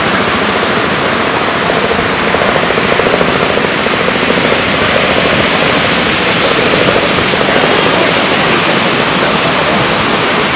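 Heavy ocean surf breaking and churning on a rocky shore: a loud, steady rushing of white water.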